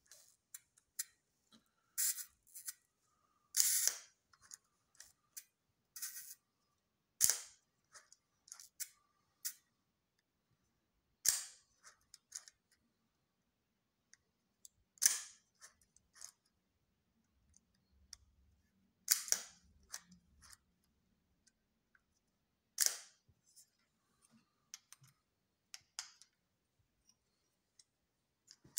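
FED 3 35mm rangefinder camera being wound and fired over and over with its back off. Sharp shutter clicks come about every four seconds, with small ticks of the wind knob between them.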